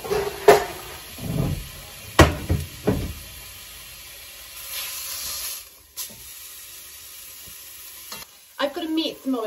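Metal clanks and knocks as the oven tray and door are handled, then beef sizzling briefly in a hot cast-iron casserole as it is turned with metal tongs.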